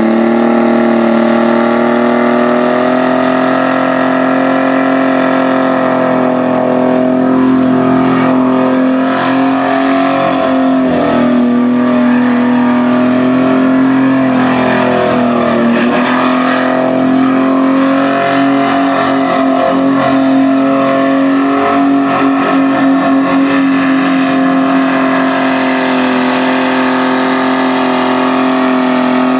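Straight-six engine of a Ford Escort held at high revs in a burnout, its rear tyres spinning in smoke. The engine note stays steady for long stretches and dips briefly twice, about eleven and sixteen seconds in, before climbing back.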